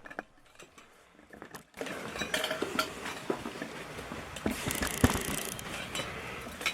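Small metal parts and tools clinking and clattering as they are handled, in scattered sharp clicks and knocks. A steady background hiss comes in at about two seconds, and the loudest knock falls about five seconds in.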